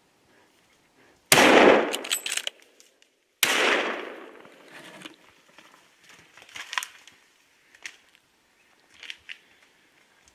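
Two rifle shots about two seconds apart, each followed by a long echo that dies away. A few faint clicks follow.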